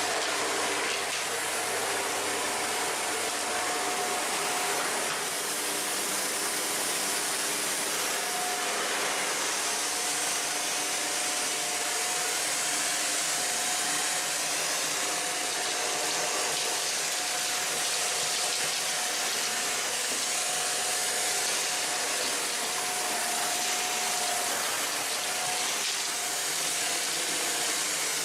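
Shark NZ850UKT upright vacuum cleaner running on its minimum suction setting while vacuuming the floor: a steady rushing of air with a faint motor whine that dips out briefly now and then.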